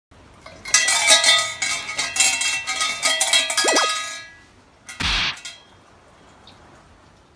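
Large shrine bell (suzu) shaken by its rope, jangling for about three seconds, rung to announce a prayer. A single short noisy burst follows about five seconds in.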